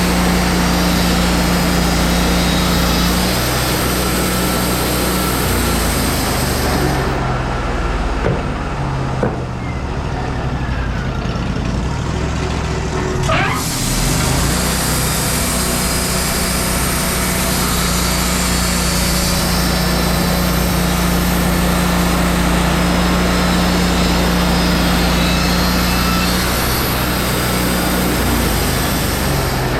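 Wood-Mizer LT40 band sawmill running steadily while sawing madrone into one-inch slabs, the engine holding an even pitch under the hiss of the band blade in the wood. For several seconds in the first half the hiss drops away, then the cut resumes.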